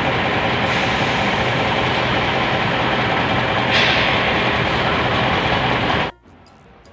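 Diesel engine of a tractor truck running steadily at idle close by. It cuts off abruptly about six seconds in.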